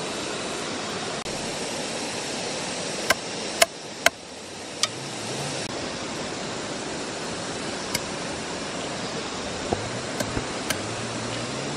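Steady rush of a flowing stream, with sharp knocks of a knife blade striking a wooden log, in a quick group of four a few seconds in and a few more scattered near the end.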